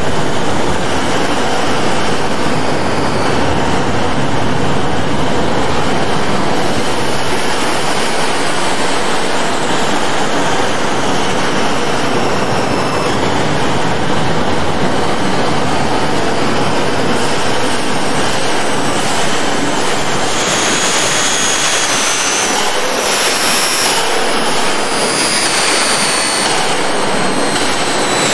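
A loud, steady wash of noise from a sampled wind sound effect played through the sforzando sampler with ambience reverb. Faint high falling tones drift through it in the second half.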